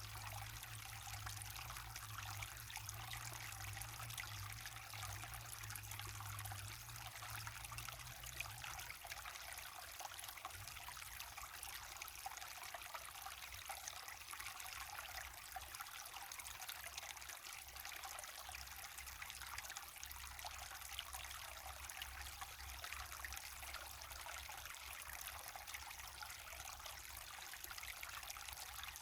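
Small waterfall and stream running steadily, water splashing and trickling in an even hiss.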